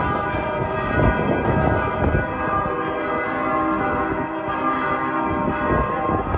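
Church bells of St. Vitus Cathedral pealing: several bells sounding together, fresh strikes landing over a dense, sustained hum of ringing tones.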